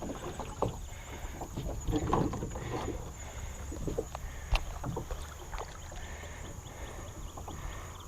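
A small creek boat on a pond, with irregular light knocks and water sounds from the paddle and hull, over a low rumble of wind on the microphone.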